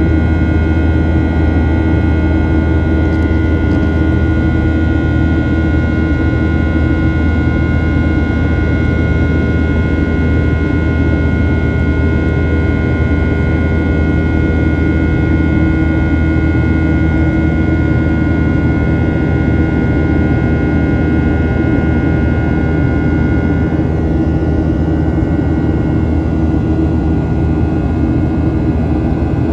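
Cabin noise of a Boeing 737-900ER climbing after takeoff: its CFM56-7B turbofan engine runs with a steady low rumble and several whining fan tones. One of the high tones drops out about three-quarters of the way through.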